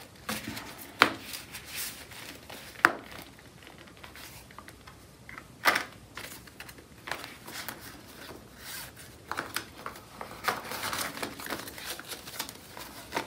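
Paper banknotes and cash-envelope pages rustling and crinkling as bills are handled and counted by hand, busier near the end. Three sharp clicks stand out in the first six seconds.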